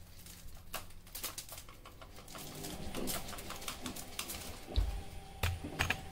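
A cat playing with a feather wand toy on a tiled floor: faint rustling and light taps. Soft cooing calls come in the middle, and three dull thumps follow near the end.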